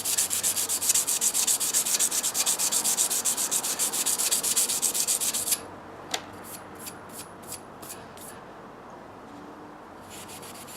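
Emery cloth rubbed rapidly back and forth on a copper pipe, scouring the tarnish off to bring back its shine. The scrubbing stops a little past halfway, followed by a sharp click and a few light taps, and starts again near the end.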